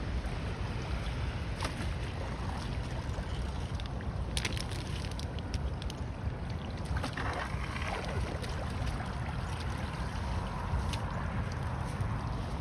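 Floodwater swirling and rushing down a just-cleared drain in a steady gurgle, with a few light clicks over it.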